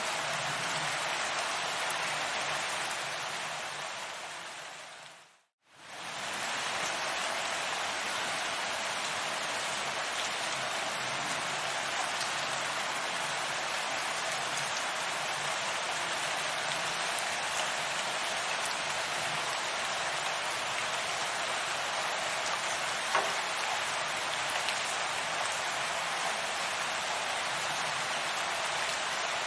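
Steady rainfall, an even hiss of rain on a surface. About five seconds in it fades down to silence and swells back within a second. A single sharp tick comes about two-thirds of the way through.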